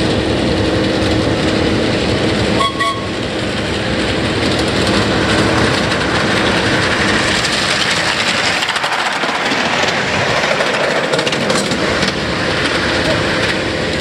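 Miniature passenger-hauling live-steam locomotive running close past, with steam hissing and the clatter of its wheels on the track.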